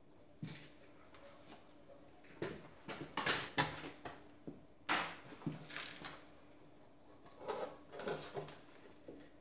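Irregular knocks, clinks and rustles of tools and parts being handled at a workbench, with the sharpest clink about five seconds in.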